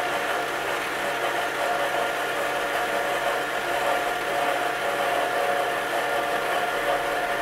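Electric stand mixer motor running steadily on a low speed setting, its beater turning flour and liquid into bread dough.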